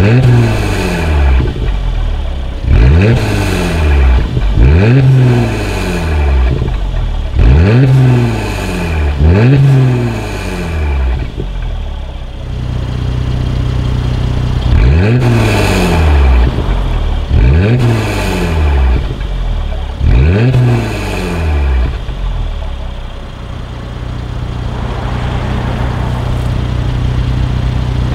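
Mercedes-Benz C450 AMG's twin-turbo V6 through an Armytrix valved cat-back exhaust, free-revved while stationary: a series of sharp rev blips, each rising and falling quickly, with steady idle between. The first blips are with the exhaust valves closed; after a stretch of idle about halfway, three more blips come with the valves open.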